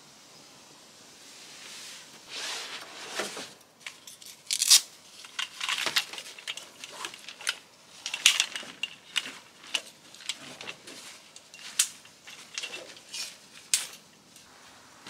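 Gear being handled: irregular rustling, crinkling and sharp clicks, starting about two seconds in.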